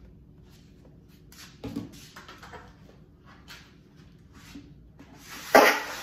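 Pantry items being handled and set down on shelves: scattered light knocks and rustles of packages and containers, with a louder clatter near the end.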